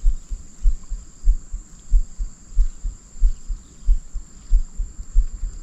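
Regular low thuds, about one and a half a second, over a steady high insect trill such as crickets.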